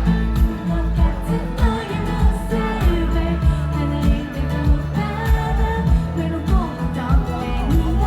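Pop song played loud over a sound system: female singing over a backing track with a steady, thumping beat.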